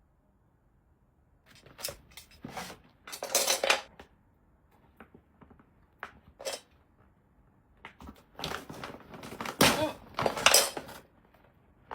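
Irregular clatter and rustle of objects being handled, coming in bunches: a cluster of knocks about two seconds in, a single one midway, and a longer, louder run near the end.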